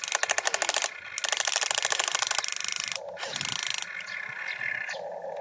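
RC excavator's geared motors running in short bursts as the boom and bucket move, a rapid ratcheting rattle of gears. It comes three times: two bursts of about a second each and a shorter one about three seconds in.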